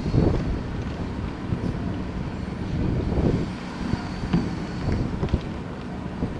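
Low rumble of a vehicle engine and wind on the microphone as an armoured security vehicle drives past. There are a few sharp pops from fireworks between about four and five and a half seconds in.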